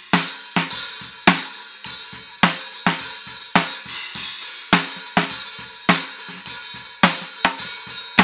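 Playback of a multitrack drum-kit recording with compression applied: a steady beat of kick and snare hits about every 0.6 s, with hi-hat and cymbal wash over them.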